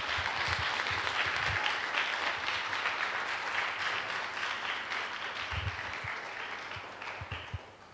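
Audience applauding, the clapping thinning out and fading near the end.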